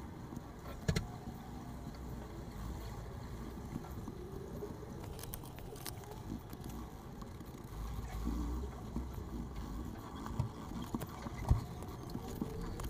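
Coloured pencil scratching across sketchbook paper while shading, with a few light knocks and a low rumble underneath from about two-thirds of the way in.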